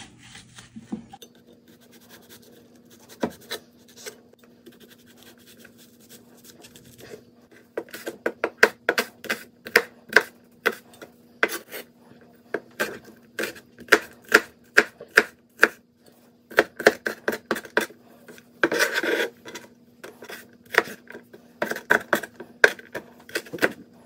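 Chinese cleaver chopping shallots on a wooden cutting board. For the first several seconds it makes slow, quiet slicing cuts, then it dices quickly with sharp knocks on the board, about four a second. About three-quarters of the way through there is a brief scrape.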